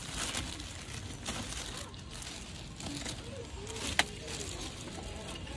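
Shop ambience of faint background voices and handling noise, with one sharp click about four seconds in.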